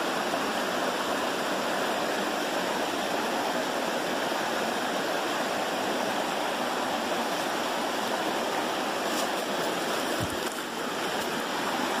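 Steady rush of a rocky mountain stream running over stone ledges at the brink of a waterfall.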